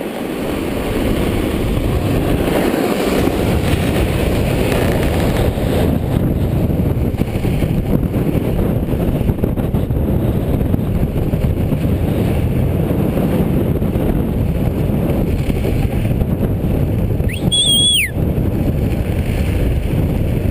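Steady rush of wind buffeting the microphone, mixed with the snowboard sliding over packed snow during a fast downhill run. Near the end, a brief high whistle-like tone that rises and falls.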